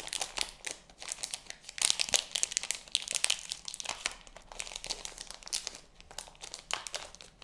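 Thin clear plastic packaging crinkling and crackling as it is handled and opened, in irregular bursts of small crackles that are densest about two seconds in and thin out toward the end.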